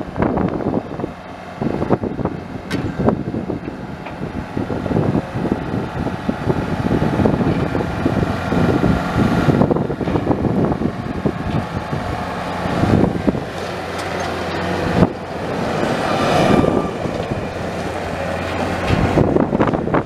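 The Kubota 3.3-litre four-cylinder turbo diesel engine of a 2002 Thomas Pro Tough 2200 skid steer running, its sound rising and falling in strength.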